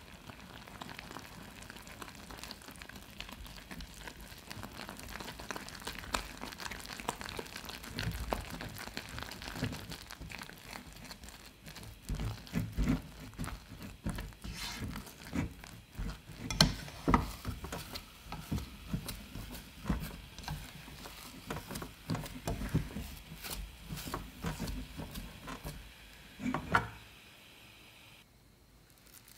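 Silicone spatula stirring and mashing flour into hot melted butter and water in a saucepan, the thickening churro dough squishing and the spatula scraping and knocking against the pan. The stirring gets busier partway through, and a sharp knock near the end is followed by quiet.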